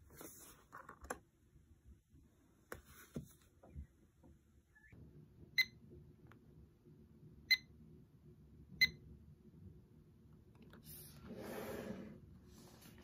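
Three short, high electronic beeps from a digital timer's buttons as a 60-minute countdown is set and started, among soft handling knocks. Near the end comes a brief rustle of a hand moving across the table.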